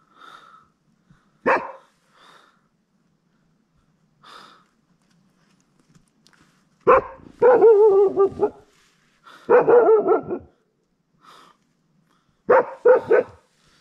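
A dog barking in bursts: one sharp bark, then two longer, wavering barks, then a quick run of two or three barks near the end. It is barking at something unseen near the tent, which the camper puts down to a leopard.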